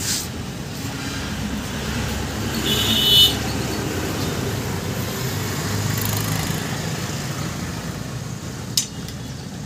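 Steady rumble of passing road traffic, with a brief high-pitched tone about three seconds in and a sharp click near the end.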